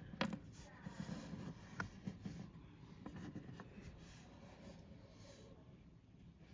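Faint handling noise of fingers with a fishing hook and line: light rubbing and scattered taps, with a sharper tap near the start and another at about two seconds. It goes quieter in the second half.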